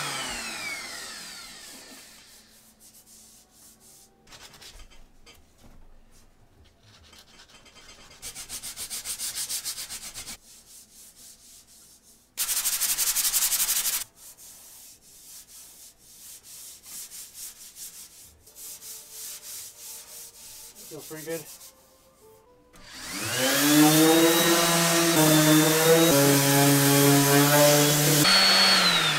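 Electric random-orbit sander on a body-filled steel engine oil pan spinning down after being switched off, followed by hand sanding: stretches of rubbing strokes, the loudest a short run about twelve seconds in. About 23 seconds in the sander starts up again with a rising whine, runs steadily, and winds down right at the end.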